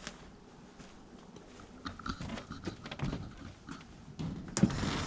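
Scattered small clicks and knocks of someone moving about and handling things, getting busier from about two seconds in, with a sharp knock and a rush of louder noise near the end.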